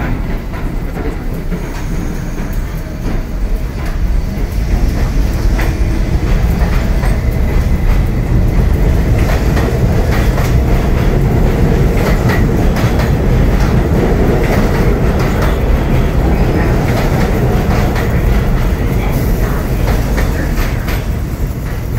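R68 subway train pulling out and running past, its wheels clattering over the rail joints as it gathers speed. The noise builds over the first few seconds, then stays loud.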